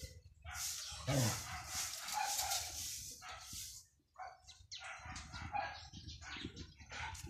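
A dog yelps or barks about a second in, a short cry falling in pitch, over a rustling hiss.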